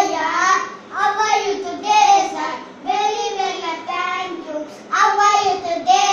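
A child singing a nursery rhyme in short phrases, each about a second long with brief pauses between them.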